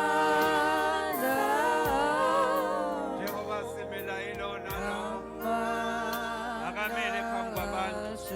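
Gospel music with singing voices over sustained keyboard chords.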